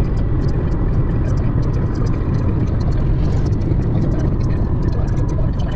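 Steady low rumble of road and wind noise inside a moving car, with scattered sharp ticks throughout.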